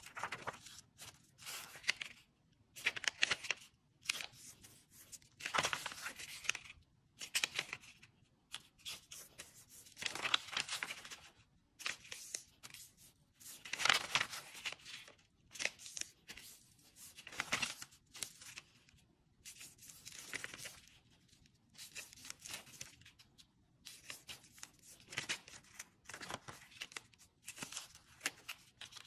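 A 15 cm square sheet of origami paper being folded by hand: irregular crisp rustles and crinkles, about one a second, as the sheet is lifted, folded over and its creases pressed flat.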